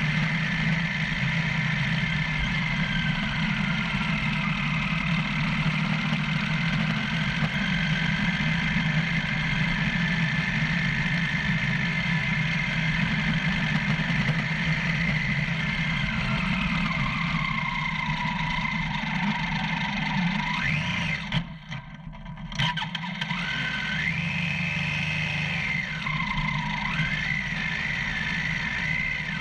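Motorcycle engine running while riding a rough gravel track, the revs rising and falling from time to time. The sound drops away sharply for about a second roughly 21 seconds in.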